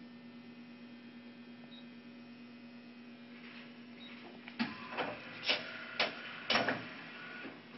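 2008 Clausing CNC lathe with a steady electrical hum, then, a little past halfway, five or six sharp mechanical clunks about half a second apart as the machine moves under power.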